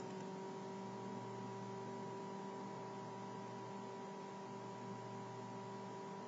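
Steady electrical hum, several constant tones over a faint even hiss, with nothing else happening.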